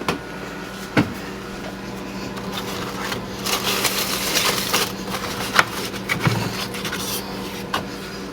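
Kitchen handling sounds: a couple of sharp knocks near the start and a stretch of rustling in the middle, over a steady electrical hum.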